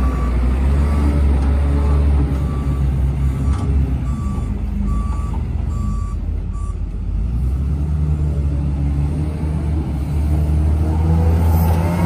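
Komatsu WA250-5 wheel loader's diesel engine running with its reverse alarm beeping steadily, a little under two beeps a second. The beeping stops about seven seconds in, and the engine rises in pitch near the end as the loader pulls forward.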